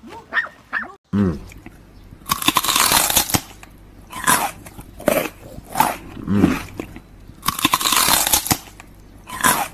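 A small white dog biting and gnawing at a whole apple, with irregular bursts of crunching. The longest bursts last about a second.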